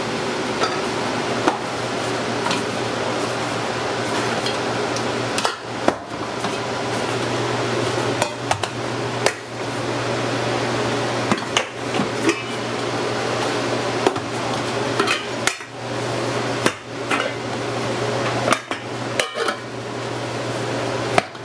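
Round aluminum pizza pans clanking against one another and the stainless steel worktable as they are pulled from stacks and set down, about a dozen or more sharp knocks at irregular intervals. A steady low hum runs underneath.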